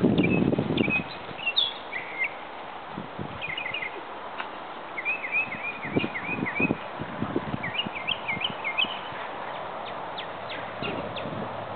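A songbird chirping in quick runs of short, falling chirps, with scattered soft thumps and rustles in the grass, the loudest at the very start.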